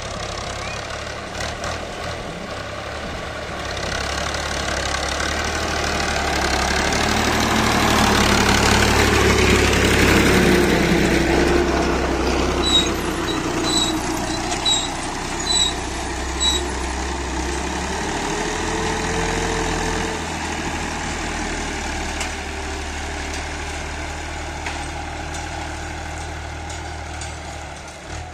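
Diesel farm tractor engine running under load as it pulls a tine cultivator through the soil, growing louder and then easing off, its pitch shifting now and then. A run of five short high chirps comes about halfway through.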